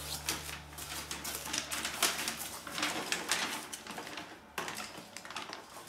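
Handling noise from assembling a plastic toy tool bench: the paper instruction sheet rustling and plastic parts clicking against each other, as a run of small irregular clicks and rustles.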